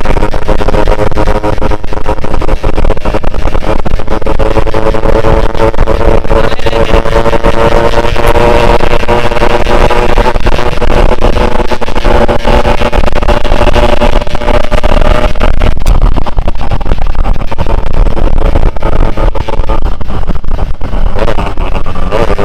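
Yamaha RX-King's two-stroke single-cylinder engine running under way on the ride, its pitch climbing slowly over the first half, then dipping and picking up again near the end. Heavy wind rumble on the microphone runs under it.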